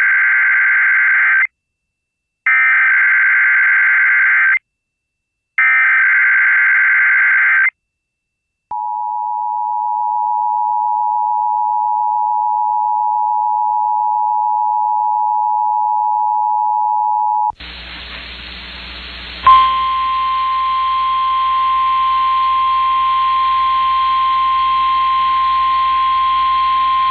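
Emergency Alert System SAME header: three screeching digital data bursts with short gaps, followed by the two-tone EAS attention signal held steady for about nine seconds, announcing an incoming alert. After a brief stretch of radio hiss and hum, a click brings in the single steady 1050 Hz NOAA Weather Radio alert tone, still sounding at the end.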